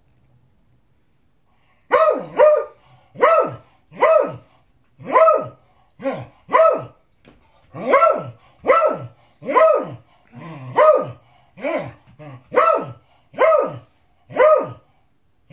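Beagle barking in a long series of loud barks, starting about two seconds in, roughly one to two a second and often in pairs, each dropping in pitch. It is demand barking for its dinner.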